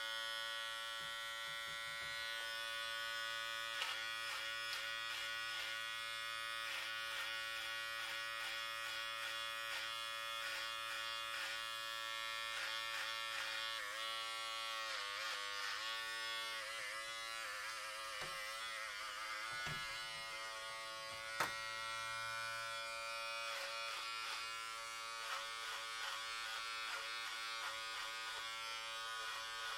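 Electric hair clippers buzzing steadily. The pitch wavers and dips for several seconds about halfway through, and there are a couple of sharp clicks.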